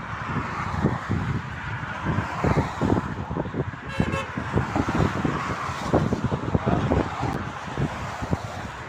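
Motorway traffic passing, with wind buffeting the microphone in heavy gusts. A short vehicle-horn toot about four seconds in.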